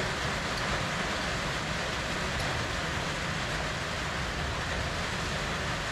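Steady rain, an even hiss that never lets up.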